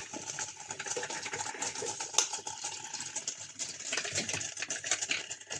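Electric drip coffee maker brewing: an irregular crackling and sputtering of hot water running through the coffee filter.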